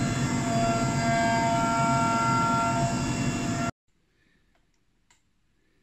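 CNC milling machine roughing the outer contour of a thick aluminium billet, with coolant spraying: a steady cutting noise with several held tones from the spindle and cutter. It cuts off abruptly a little under four seconds in, leaving near quiet with a few faint clicks of a computer mouse and keyboard.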